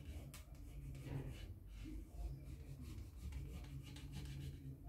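A stitching groover dragged along the edge of sheath leather, faint scraping strokes as it cuts the stitch line.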